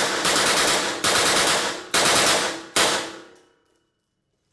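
Submachine gun firing on full auto in short back-to-back bursts, a rapid rattle of shots with new bursts starting roughly every second. The shots ring off the concrete-block walls of an indoor range. The last burst, just under three seconds in, is short, and its ring dies away to silence.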